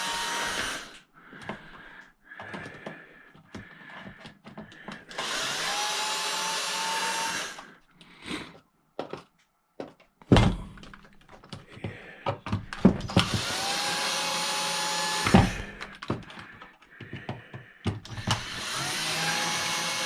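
Cordless drill/driver backing screws out of a plastic case: four short runs of the motor, each whining up in pitch and holding, with clicks, rattles of loose screws and plastic, and a couple of knocks of handling in between.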